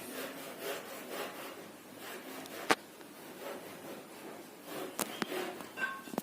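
A sick chicken's rasping, rattling breathing ('ngorok', a snoring sound), with rhythmic rasps at about two a second that fade after the first half. The sound is a sign of a respiratory infection. A sharp click comes about halfway through and another near the end.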